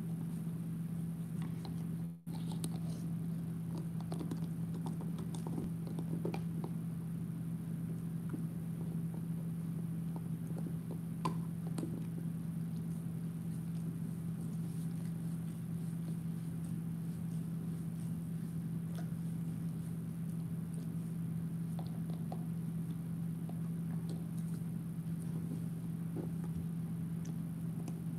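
Bernese mountain dog gnawing on a large chew bone: scattered soft clicks and scrapes of teeth on the bone, over a steady low hum.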